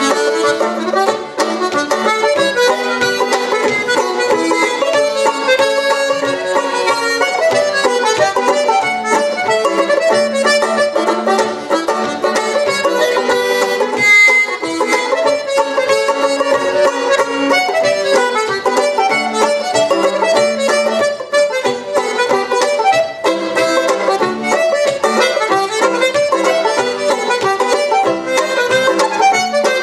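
Irish traditional barndance tunes played as a duet on banjo and button accordion, with quick continuous melody notes.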